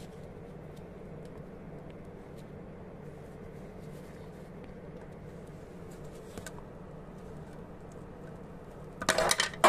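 A steady low hum with a few faint handling clicks, then, about nine seconds in, a loud clatter of strikes as a part drops and rattles inside the oil heater's metal body.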